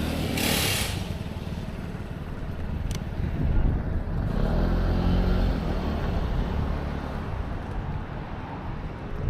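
Motor vehicle engines running amid road traffic, one engine note swelling and fading about midway. There is a brief hiss about half a second in.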